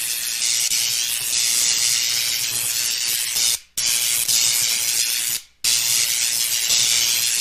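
Logo-intro sound effect: a loud, steady high-pitched hiss like static or rushing steam, cutting out briefly twice, about halfway and again about three-quarters through.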